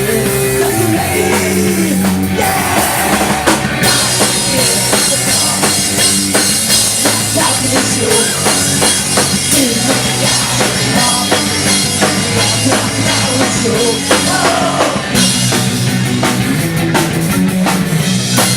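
Rock band playing an instrumental break in a punk-rock song, with bass and drum kit to the fore. A wash of cymbals comes in a few seconds in and carries through most of the passage before easing off near the end.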